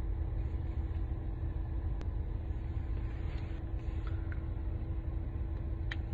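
Car engine idling, heard inside the cabin as a steady low rumble with a faint steady hum. A faint click about two seconds in and another near the end.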